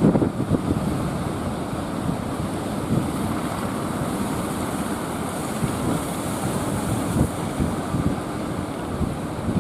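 Heavy ocean surf rushing and breaking on the shore, with wind buffeting the microphone.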